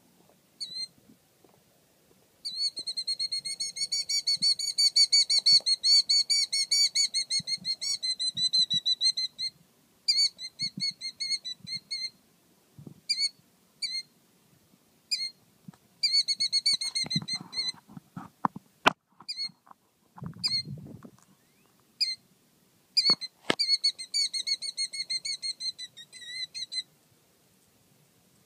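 Killdeer giving agitated alarm calls, the protective bird scolding an intruder near its mate. A long, rapid trill of high, thin notes runs for about seven seconds, then gives way to shorter trills and single calls. A couple of sharp clicks fall in the middle.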